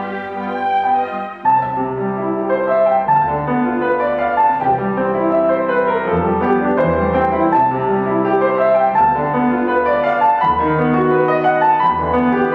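Grand piano playing a classical solo passage of many quick notes, with a brief break about a second and a half in before a strong chord.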